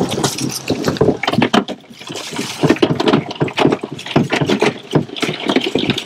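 Crab trap being handled at a boat's side: a dense run of clattering and knocking, with water dripping and splashing.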